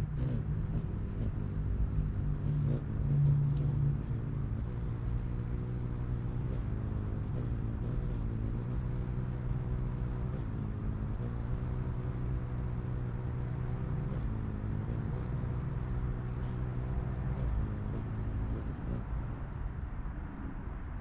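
A motor running steadily with a low pitched hum, louder for a moment about three seconds in, fading out near the end.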